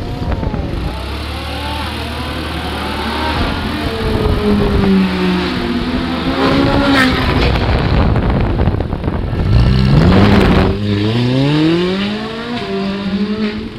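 Ferrari 458 V8 engines revving and accelerating hard, their pitch climbing several times over as they pull through the gears. The loudest burst comes about ten seconds in.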